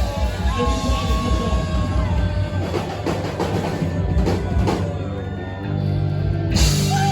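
Rock band playing: a steady low drum-and-bass beat, drum hits about halfway through, then a held chord near the end.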